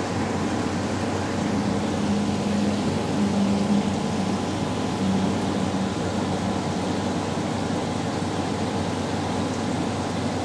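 Steady mechanical hum with a constant hiss, like a running machine or engine; a faint brief tone comes and goes a few times in the first half.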